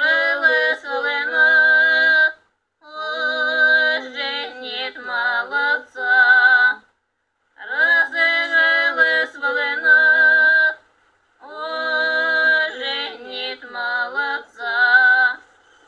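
Unaccompanied female singing with a wavering pitch, in four phrases separated by short pauses.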